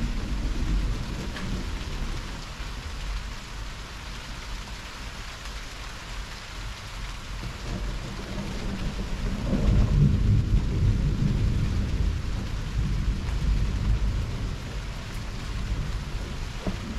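Heavy thunderstorm: a steady hiss of rain with low rolling thunder. One rumble fades over the first few seconds, then another long roll of thunder swells about ten seconds in and dies away slowly.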